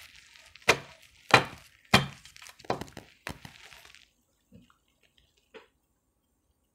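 Tarot cards being handled and shuffled by hand: a run of five sharp card snaps about every two-thirds of a second over a light papery rustle, stopping about four seconds in, with two faint soft taps after.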